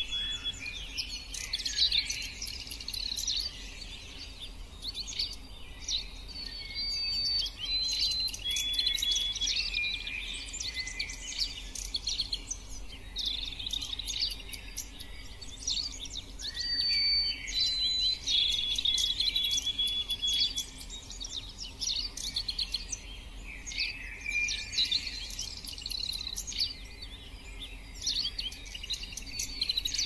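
Songbirds singing: repeated bouts of quick chirping with short, steady whistled notes mixed in, coming and going every few seconds.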